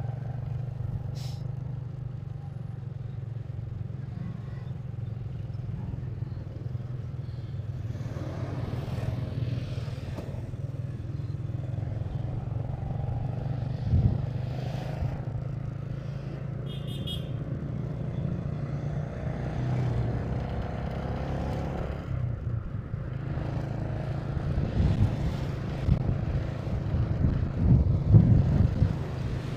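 Motorcycle engine running steadily under way, with road and traffic noise. There is a brief thump about fourteen seconds in, a short run of quick beeps a few seconds later, and a louder, gusty rumble near the end.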